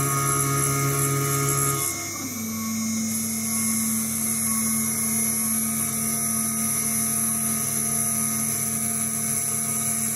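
Small DIY CNC mill's spindle whining steadily as a small end mill cuts a slot in an aluminium block, with a lower hum that changes about two seconds in and then holds steady.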